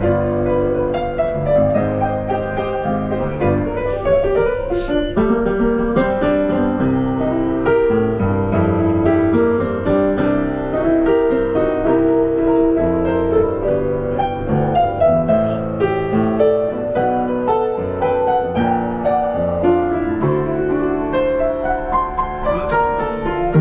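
Piano playing a continuous tune, a melody over chords.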